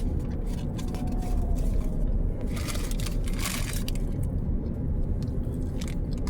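Close-up eating sounds: chewing, with short wet clicks and crackles from the mouth and food, over a steady low rumble.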